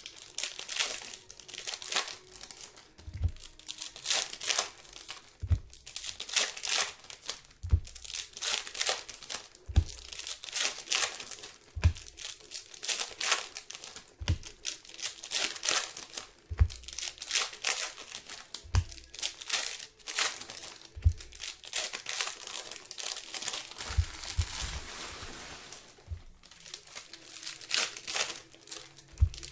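Wrappers on trading-card boxes and packs being torn open and crinkled in quick, irregular bursts, with a soft low thump about every two seconds.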